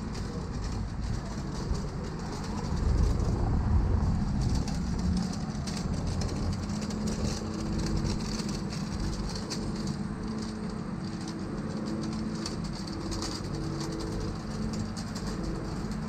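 Street traffic: a motor vehicle engine running close by, a heavy low rumble that swells a few seconds in and settles into a steady hum from about halfway, with faint clicking over it.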